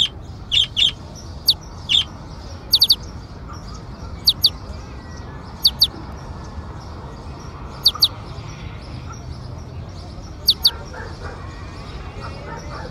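Birds chirping: short, sharp high chirps, often in pairs, coming every second or two over a steady low background rumble.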